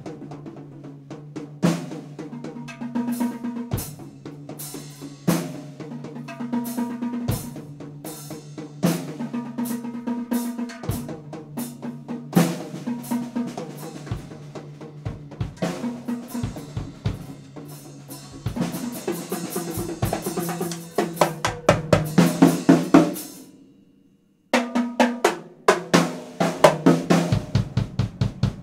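DW acoustic drum kit played hard: snare, bass drum and tom strokes over a sustained low drone from the track he is playing along to. The playing builds into a fast, dense fill, cuts off suddenly for about a second, then comes back in.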